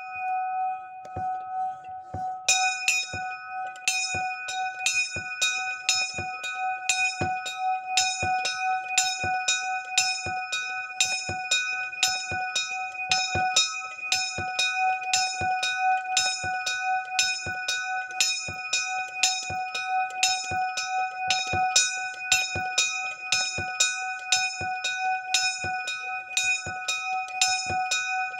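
Small bronze bell swinging in a wooden frame and ringing, struck by its newly fitted clapper about twice a second, with a steady ringing tone carrying between strikes.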